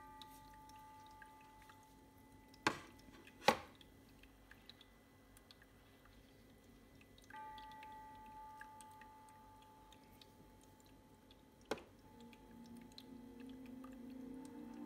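Aroma diffuser chiming as it is switched on and changed from its remote: a short electronic chime of several tones at the start and another about seven seconds in. Between them, two sharp knocks of small objects set down on a wooden tray, and a third knock near the end.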